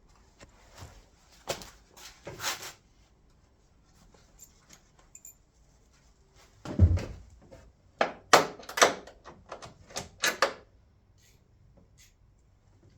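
Scattered clicks and knocks of a car's rear tail light being fitted and tightened by hand. A heavier thump comes about seven seconds in, followed by a quick run of sharp clicks.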